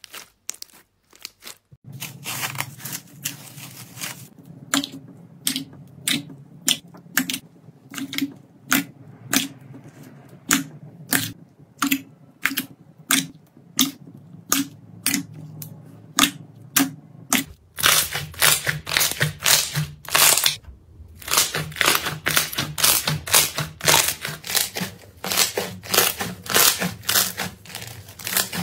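Clear slime being pressed and kneaded by hand, giving a run of sharp clicking pops and squelches, about two a second at first and coming thicker and faster in the latter half.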